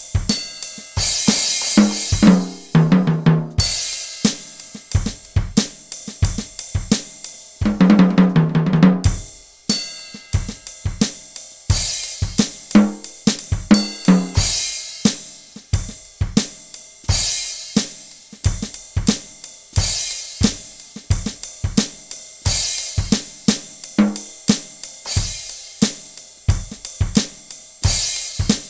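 Electronic drum kit played in a steady groove of kick, snare, hi-hat and cymbals, recorded direct through an aux cable. Rolls down the toms come about two seconds in and again around eight seconds in.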